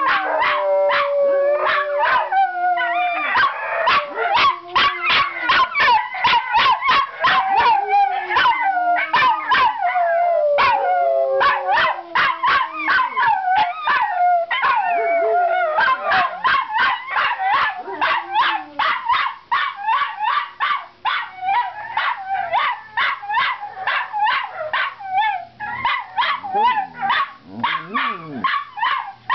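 Miniature Schnauzers howling, with long wavering calls that fall in pitch, over a rapid run of high yelps about three a second. It is an excited greeting chorus set off by seeing their owner coming home.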